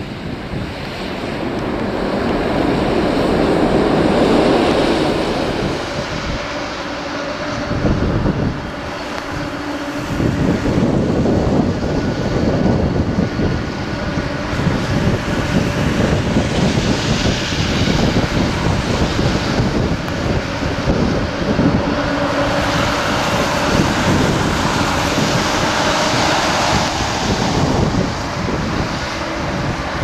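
Gusty wind buffeting the microphone over jet engine noise. A departing airliner's takeoff thrust swells a few seconds in, then the steady hum of a taxiing Boeing 747's engines carries on under the wind.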